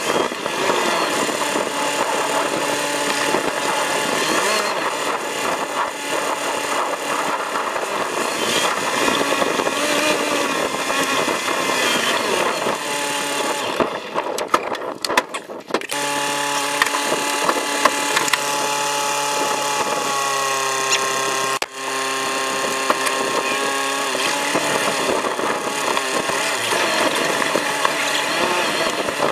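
Off-road vehicle's engine and road noise from inside the vehicle on a rough track, played back sped up so the engine note sits high. The engine holds a steady note through the middle, with a brief dip in the sound about halfway.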